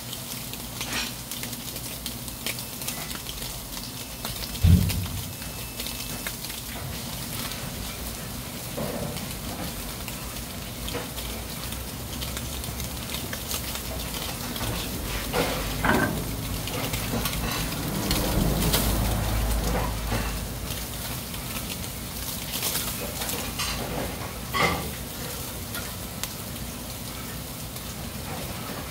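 Freshwater eel fillets sizzling on a wire grill over hot charcoal: a steady hiss with small crackles and pops as the fat cooks. A sharper thump about five seconds in, and a few louder pops later.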